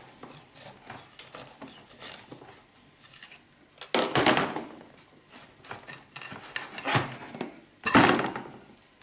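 A tool scraping and knocking against the inside of a bonsai pot as the root ball is cut free from the pot walls, with light clinks and two louder scrapes about four and eight seconds in.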